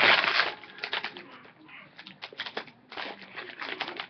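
Plastic cookie packaging rustling and crinkling as it is handled: a loud rustle at the start, then a run of short crackles.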